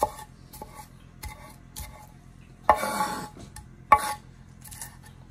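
Chef's knife chopping green onions on a wooden cutting board: a few separate sharp knocks of the blade on the board, and a short scrape of the blade across the board near the middle.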